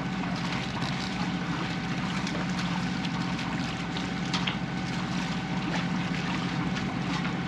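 A Maxi 84 sailboat's inboard engine running steadily under way at low harbour speed. It gives a constant low running note with a thin, steady whine above it, over a rushing hiss.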